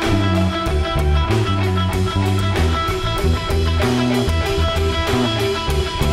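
Rock band music: electric bass, guitar and drum kit playing with a steady beat.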